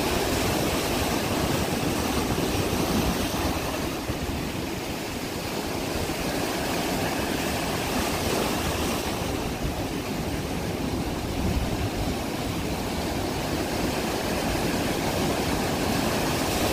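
Ocean surf breaking steadily on the shore, with wind rumbling on the microphone.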